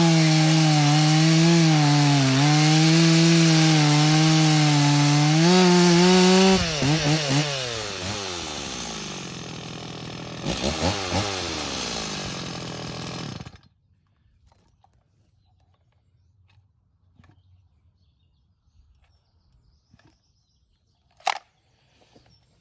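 Stihl MS 260 C two-stroke chainsaw at full throttle cutting wood, its note dipping and recovering under load. About six and a half seconds in the throttle is released and the engine falls to idle, gets one short blip, then is switched off and stops abruptly about thirteen seconds in. Then near quiet, with one sharp click near the end.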